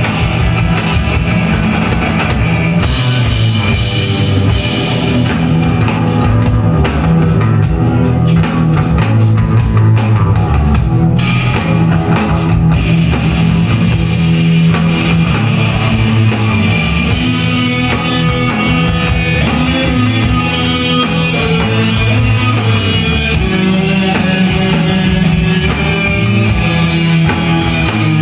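Rock music with a driving drum kit and guitar, the drumming turning to fast, steady strikes about five seconds in.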